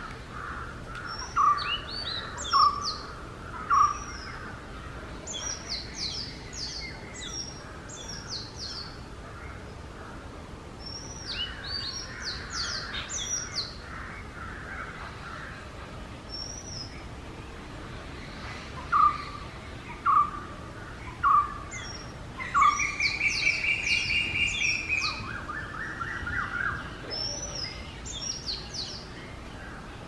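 Oriental magpie robin singing: a varied song of clear whistled notes and quick high phrases. Loud short whistles come three times early on and four times about two-thirds through, followed by a fast trill.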